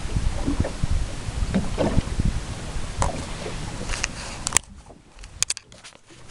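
Wind buffeting the microphone over open water, an uneven low rumble with scattered knocks. About four and a half seconds in, the camera is handled: a few sharp clicks, and the wind noise drops away for about a second and a half.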